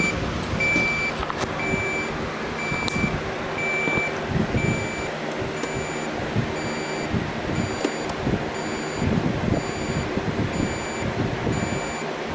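Samsung refrigerator control panel beeping over and over, a short high beep repeating at an even pace, the signal that the fridge is in forced defrost/test mode. Irregular low knocking and rustling from handling lies underneath.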